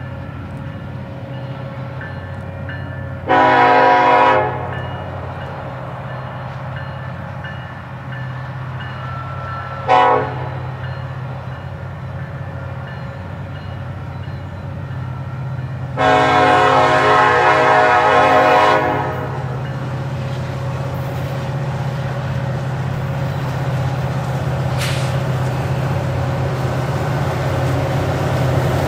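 Approaching diesel locomotive sounding its multi-tone air horn: a long blast, a short one, then a longer one of about three seconds. Under the horn a steady low engine rumble grows louder toward the end as the train nears.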